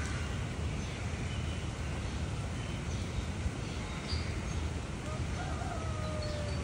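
Floodwater flowing through a street: a steady rushing noise with a low rumble. Birds chirp faintly over it, and a short, slightly falling call sounds about five seconds in.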